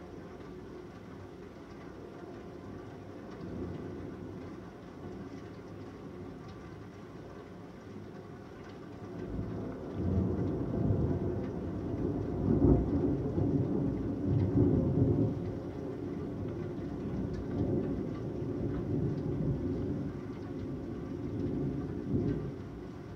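Steady rain with a long roll of thunder: the rumble comes in about ten seconds in, is loudest a few seconds later, and keeps rolling before dying away near the end.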